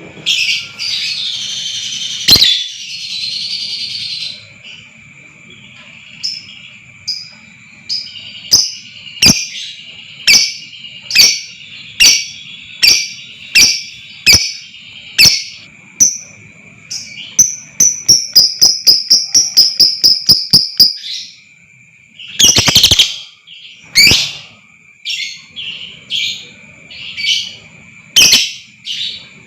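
Lovebird calling: sharp high chirps spaced about a second apart, then a fast run of rattling notes for several seconds, the long chatter ('ngekek') of an excited lovebird, followed by more loud chirps.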